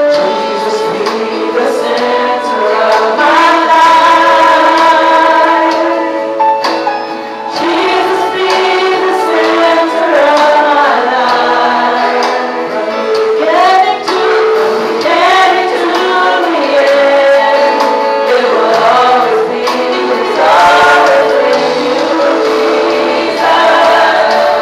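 A worship team of women's voices singing a gospel praise song together into microphones, with music underneath.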